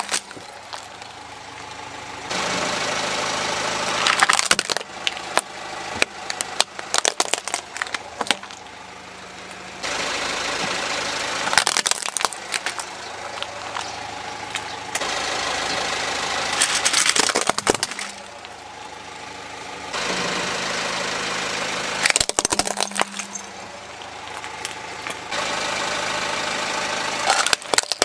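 Car tyre rolling slowly over gritty concrete and crushing small plastic toys: sharp cracks and crunches as the plastic breaks, over the car's idling engine. This comes in three separate runs, each a stretch of steady gritty rolling noise with a cluster of cracks.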